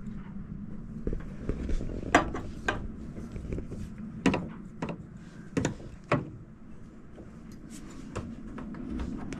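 A chrome galley tap being handled and twisted round in its countertop mounting: about five sharp metallic clicks and knocks, over a steady low hum.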